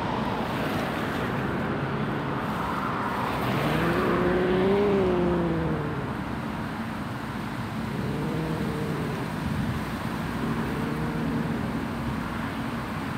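Stray cat growling: three drawn-out moaning growls that rise and fall in pitch, the first about four seconds in the longest and loudest, over steady background noise.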